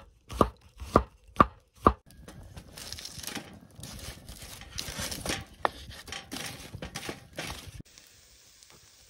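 A chef's knife chopping garlic on a wooden cutting board: four sharp chops, about two a second. Then a wood campfire crackling and hissing for several seconds, fading to quiet near the end.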